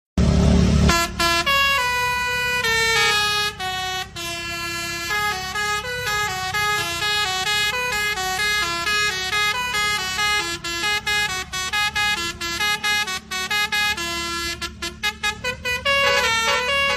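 Telolet basuri musical horn on a tour bus playing a tune: a melody of horn notes that step up and down, with a fast run of short, clipped notes near the end. A steady low hum runs underneath, and a loud low rush fills the first second.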